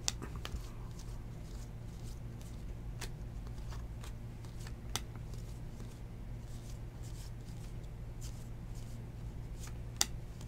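A stack of 2019 Topps Series 2 baseball cards being flipped through by hand, each card sliding off the stack with a light flick. It makes a scattering of soft clicks and rustles over a steady low hum.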